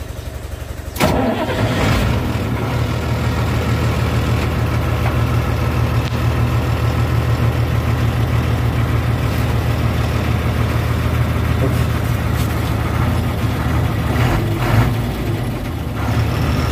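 Ashok Leyland truck's diesel engine cranking and catching about a second in, then running at a steady idle. It is started by twisting two ignition wires together at the dashboard instead of with a key.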